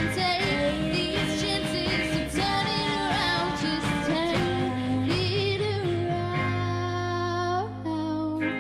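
Live rock band playing: a woman singing over electric guitar and a drum kit, holding a long sung note for a while in the second half.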